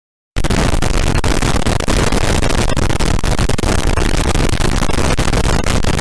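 A meme sound effect: a loud, harsh, distorted blast of crackling noise that cuts in about a third of a second in and holds steady.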